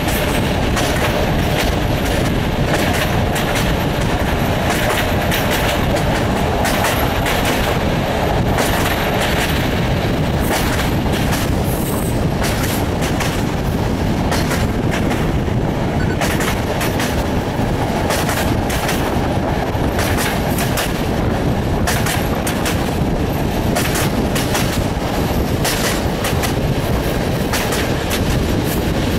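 Passenger train running along the track, heard from an open carriage window: a loud, steady rumble of wheels on rail, with many sharp clicks as the wheels cross rail joints.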